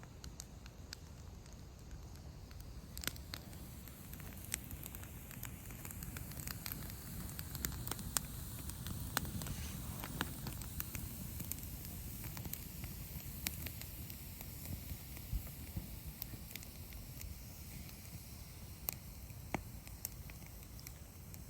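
Wood campfire burning, crackling with irregular sharp pops over a low steady rush.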